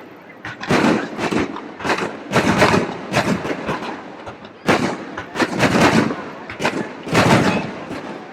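Aerial fireworks bursting in quick succession: a rapid run of booms and bangs, several a second, each dying away.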